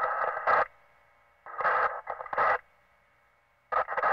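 Police radio scanner in a patrol car: short bursts of tinny, narrow-band transmission, each opened and closed by sharp squelch clicks. One burst cuts off just after the start, a second runs about a second in the middle, and a third begins near the end, with only faint hiss and hum between them.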